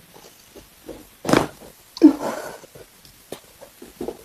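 Chiropractic neck adjustment: a quick pop of the neck joints about a second in. It is followed by a short, startled vocal sound from the patient, then a faint click.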